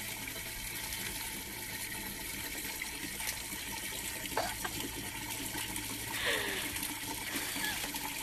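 Water from an outdoor wall tap running steadily, the stream splashing down into a watering can. A brief, louder sound cuts in about six seconds in.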